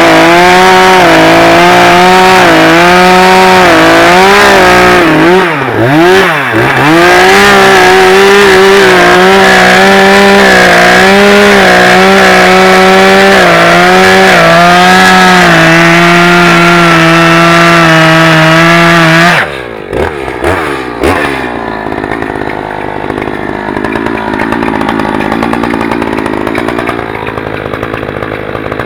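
Echo CS-590 Timberwolf two-stroke chainsaw with a 20-inch bar and full-chisel chain, running at full throttle while cutting through a large log. Its pitch dips and recovers briefly about five seconds in. Near twenty seconds in it drops off throttle to a quieter, lower running.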